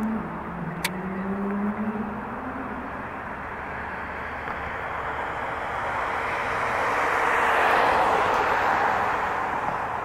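A passing vehicle: broad noise that swells to its loudest about eight seconds in, then eases off. Before that, a low droning hum wavers in pitch and fades out about two seconds in, with one sharp click just under a second in.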